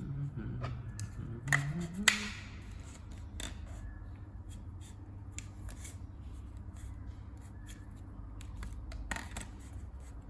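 Scattered clicks and rustles of objects being handled, with a few sharp clicks about two seconds in and a short cluster near the end, over a low steady hum.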